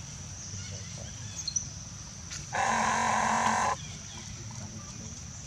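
A single animal call lasting about a second, starting and stopping abruptly in the middle, over a steady high-pitched whine.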